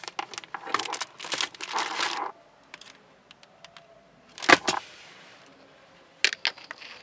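Plastic-wrapped document packet crinkling as it is lifted out of a car's glove box, for about the first two seconds. Then faint ticks, a sharp knock about four and a half seconds in, and a smaller click a little before the end.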